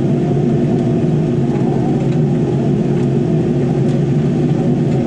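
Cat 308 mini excavator's diesel engine running steadily while the machine tracks backward, heard from inside the cab.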